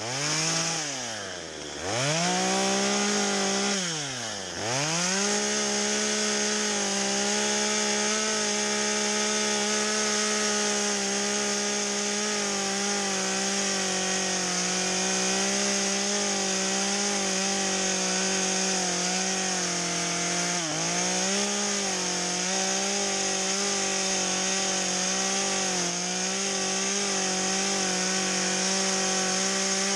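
Stihl two-stroke chainsaw fitted with a carving bar, carving into wood. In the first five seconds the revs drop and climb back up twice, with a short dip again about twenty seconds in; otherwise the saw is held at high revs.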